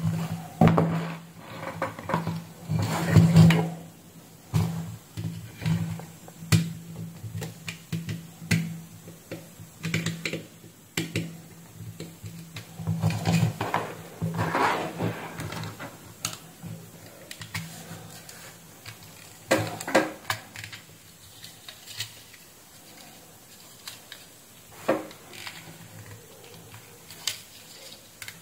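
Irregular clicks, taps and scrapes of a white plastic thermostat power converter module and a screwdriver being handled. They are busy in the first half and sparser later.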